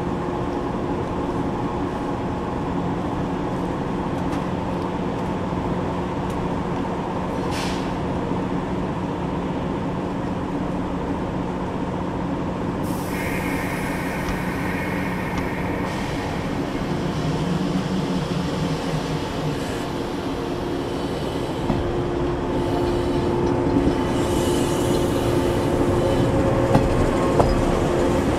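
JR 381-series 'Super Yakumo' electric limited express standing at a platform with a steady electrical hum, with a high tone sounding for about three seconds near the middle. In the last several seconds the hum grows louder as the train pulls away, with a few sharp clicks from the wheels.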